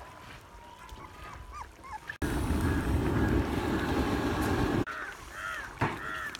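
Birds chirping in short arched calls. About two seconds in, a loud steady rushing noise that is heavy in the low end cuts in suddenly. It lasts about two and a half seconds, then cuts off just as suddenly, and the bird calls return near the end.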